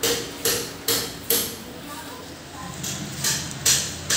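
Repeated sharp knocks: four about half a second apart, then after a pause three more near the end.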